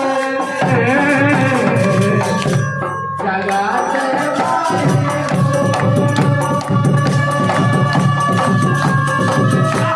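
Banjo playing a melody line over a drum accompaniment. The drums stop briefly about three seconds in and come back about two seconds later.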